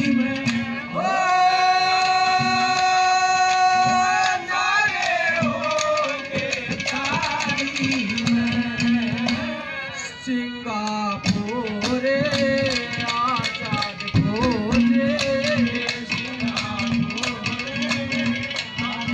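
Live Haryanvi ragni folk music: a hand drum keeps a steady beat while a melody holds one long note for a few seconds, then moves into a wavering, bending line.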